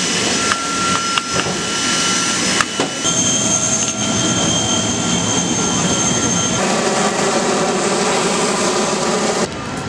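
Steady mechanical rushing noise with high whining tones, the set of tones changing abruptly twice, about three seconds apart.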